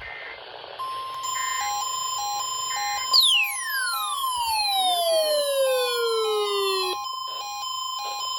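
Emergency alert warning alarm tones: a steady tone near 1 kHz starts about a second in, with a lower tone pulsing against it about twice a second. From about three seconds in to about seven, a sweep falls steeply in pitch.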